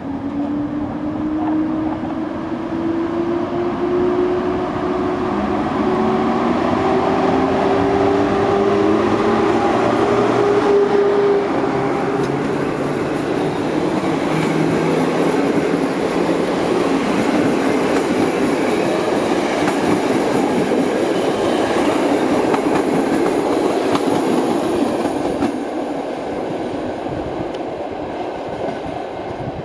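PKP Class EP07 electric locomotive pulling a passenger train away from a station, with a whine that rises in pitch as it gathers speed past. After about ten seconds the passenger coaches take over with a steady wheel-and-rail noise, which fades near the end as the train moves away.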